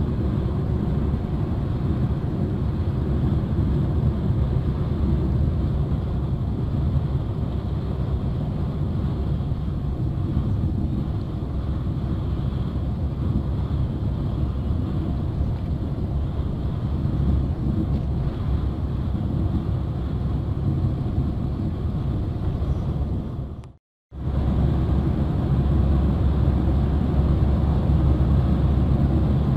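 Steady low road and engine rumble heard from inside a vehicle cruising on a highway. It cuts out for a split second about three-quarters of the way through, then returns a little louder.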